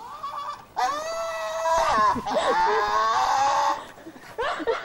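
Staffordshire bull terrier's high-pitched whining cry while it grips and hangs from a rope toy. It starts shortly after the start and runs about three seconds, with the pitch sliding up and down.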